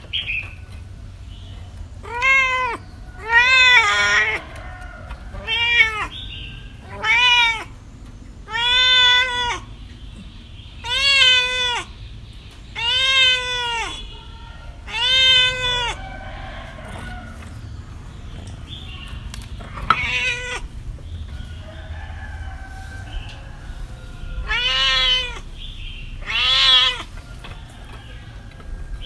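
A cat meowing over and over, each meow a short call that rises and falls in pitch, about one every two seconds. After a pause in the middle, two more meows come near the end.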